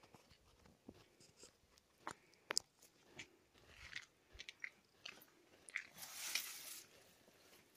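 Scattered soft crunches and clicks, with a longer rustle about six seconds in: footsteps and brushing through dry leaves, grass and undergrowth.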